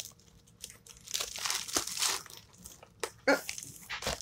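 Amazon Prime plastic poly mailer crinkling and rustling in irregular bursts as it is opened by hand, with a sharper, louder crackle about three seconds in.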